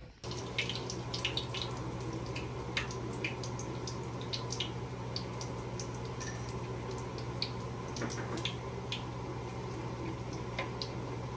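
Batter-coated Oreos deep-frying in a pan of hot oil: a steady sizzle with frequent sharp pops and crackles, over a steady low hum.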